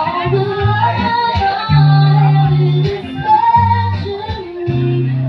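Live semi-acoustic band music over a PA system: a woman singing over guitar, with held bass notes that change every second or so.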